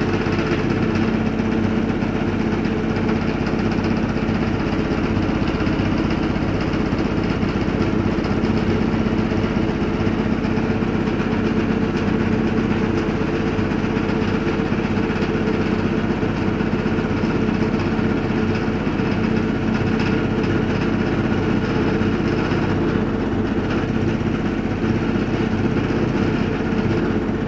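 Electrolux EWS1076CI washing machine on its spin cycle: a loud, steady running hum.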